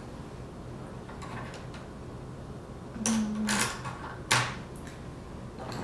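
Makeup items being handled: a brief rustle about three seconds in, then a single sharp click.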